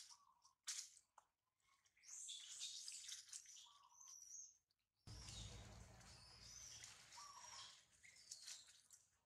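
Rustling of dry twigs and leaf litter as baby macaques clamber about, with several short high chirps or squeaks. A low rumble comes in about halfway through.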